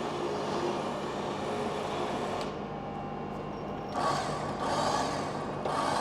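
Truck engine running steadily while a truck-mounted crane's boom and cable lift a vehicle axle, with louder mechanical noise about four seconds in and again near the end.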